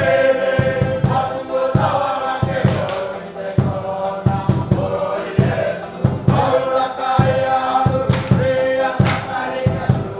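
Music: a group of voices singing together in chorus over a steady drum beat.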